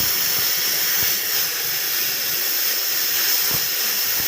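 Oxy-fuel gas welding torch flame hissing steadily, with a few faint knocks.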